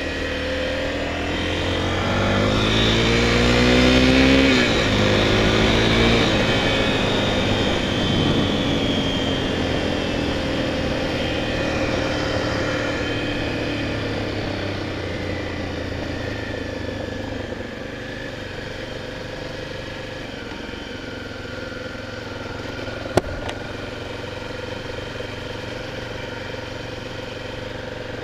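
Honda XR 250 Tornado's single-cylinder four-stroke engine revving up about two seconds in, then running at steadier revs that slowly drop off as the bike is ridden. A single sharp click near the end.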